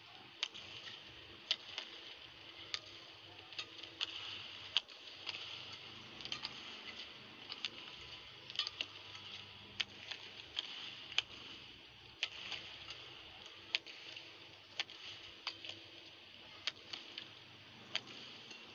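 Badminton rally: rackets striking the shuttlecock in sharp cracks about once a second, over a steady arena hiss.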